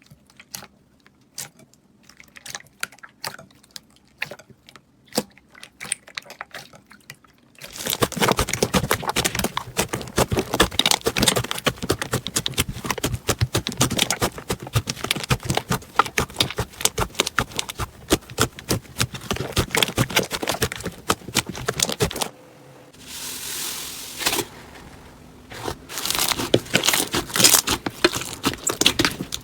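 Slime worked by hand: at first scattered sticky pops and clicks, then, from about a quarter of the way in, a dense crackling of crunchy slime being squeezed. The crackling breaks off briefly for a softer hiss and then resumes near the end.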